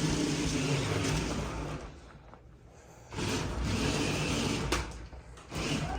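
Toy remote-control car's electric motor whirring in spurts as it is driven, stopping for about a second two seconds in and again briefly near the end.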